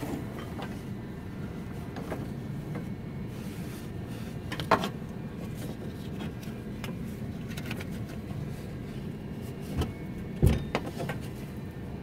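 Handling noise as a ribbed serpentine belt is fed by hand around the engine's pulleys: steady rustling, with a knock about five seconds in and two more near the end.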